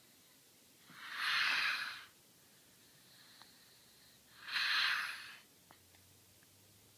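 Snoring: two loud, rasping snore breaths, each about a second long and about three and a half seconds apart.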